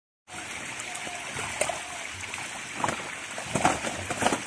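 Live fish thrashing and splashing in water crowded inside a seine net, with hands sloshing among them; a steady churning of water broken by several sharp splashes. The sound cuts in suddenly just after the start.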